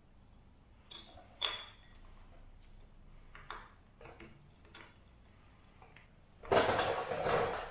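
Scattered metallic clicks and clinks as parts are fitted on a truck's front axle hub, then, about six and a half seconds in, a loud rush of compressed air from an air hose lasting about a second.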